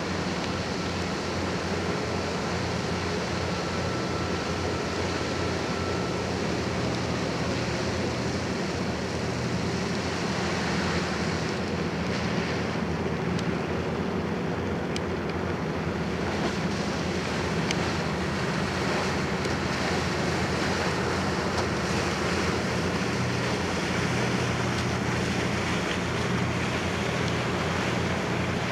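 Steady low hum of a large cruise ship's machinery, mixed with a constant rush of wind and water noise. A faint thin high tone sounds for the first few seconds.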